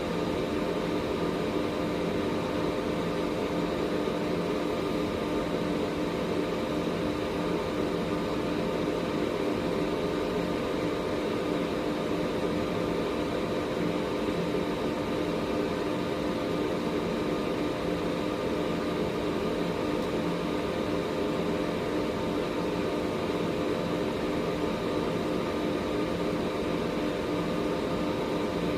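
Air purifier fan running steadily: an even rush of moving air with a low motor hum and a faint high whine, unchanging throughout.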